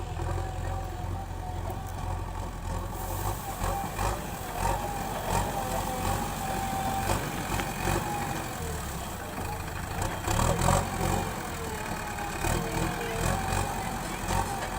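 JCB backhoe loader's diesel engine running steadily, with scattered knocks and a wavering whine over it.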